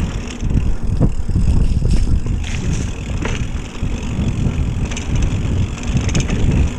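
Mountain bike rolling along a dirt trail: a steady low rumble of tyres and wind buffeting the action camera's microphone, with a few sharp rattles from the bike.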